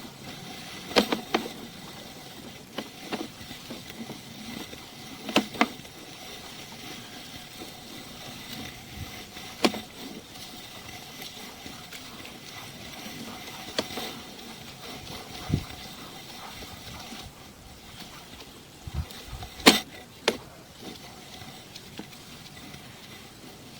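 Sewer inspection camera's push cable being pulled back out of the line by hand, with scattered sharp clicks and knocks every few seconds over a steady faint hiss; the loudest knocks come near the end.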